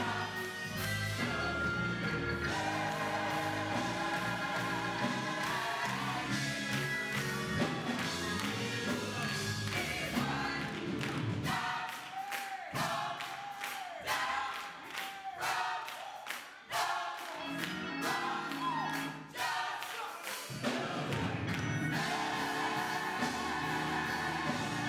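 Gospel choir singing with live band accompaniment. In the middle, for several seconds, the bass and low instruments drop away, leaving the voices over sharp rhythmic strikes, before the full band comes back in.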